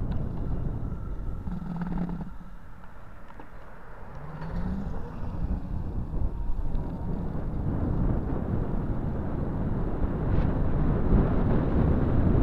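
Wind rushing over the microphone of a camera moving along a road, a dense low rumble that eases for a couple of seconds early on and then builds again.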